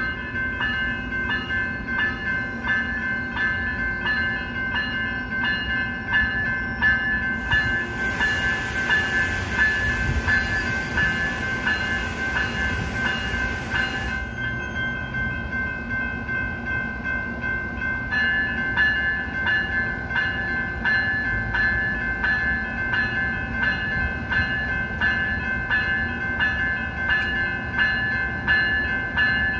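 Railroad crossing bell ringing in rapid, even strikes at a lowered-gate grade crossing, over the low rumble of a stopped passenger train. A hiss joins in from about 7 to 14 seconds in.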